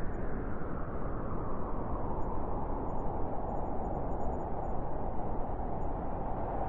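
Strong wind blowing in a steady, deep rush that swells and eases only a little, with no gusts or breaks.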